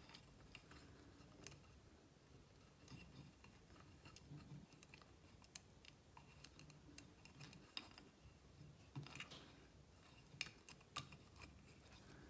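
Near silence with faint, scattered small clicks and rustles: a wooden string-and-knob puzzle being handled, its looped string threaded through the wooden frame.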